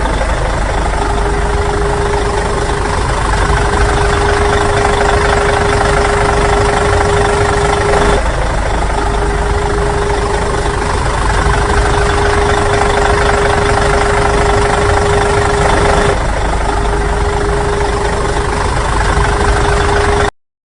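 An engine idling steadily, with a constant steady tone over a low rumble. The sound breaks briefly twice and cuts off abruptly near the end.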